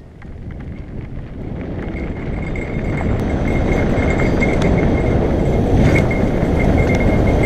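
Mountain bike rolling downhill on a dirt trail: rushing wind on the helmet camera and tyres on dirt grow louder as the bike picks up speed. From about two seconds in, a cheap bell mounted loose on the bike jingles continuously with the bumps, a trail bell that warns others on the trail.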